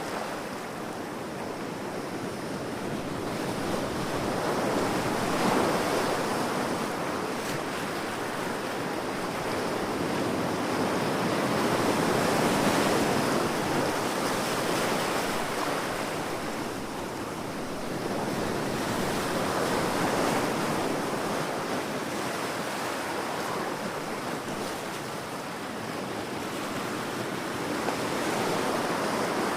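Ocean waves breaking on a beach: a steady rush of surf that swells and eases about every seven or eight seconds.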